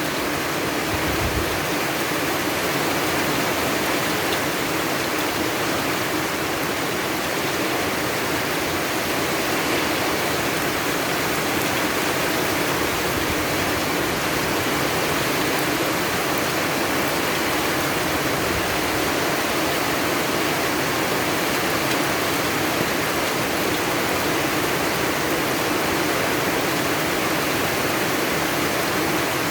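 Heavy rain falling, a steady, even hiss without a break.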